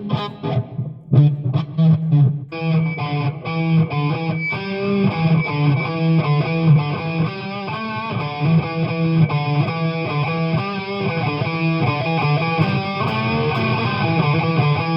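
Electric guitar played through a Marshall CODE 100 amp head and 4x12 cabinet. A few separate picked notes with short breaks come first, then a continuous run of notes from about two and a half seconds in.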